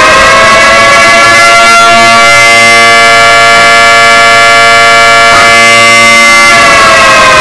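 Civil defense siren sounding a loud, steady, many-toned wail at full pitch. Its pitch starts to fall near the end as it winds down.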